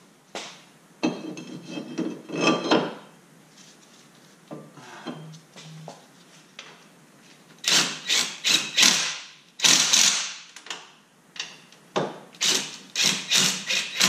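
A few metal clanks of tools and parts, then from about halfway in a hand ratchet clicking in quick runs of strokes as a front brake caliper bolt is run in and tightened.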